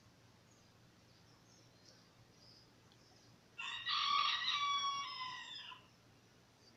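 A single loud bird call, starting about halfway through and lasting about two seconds, a brief first note then one long held note that trails off downward, over faint high chirping in the background.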